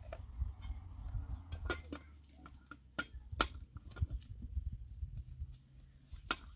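A few sharp clinks and knocks of a metal cooking pot and its lid being handled, over a low steady rumble.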